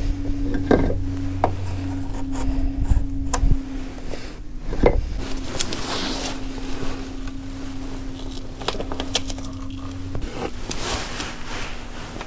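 Irregular wooden knocks, clunks and scrapes as a piece of timber for sistering a frame is handled and fitted into the boat's bilge. A steady low hum runs underneath, and a deeper rumble under it cuts out about ten seconds in.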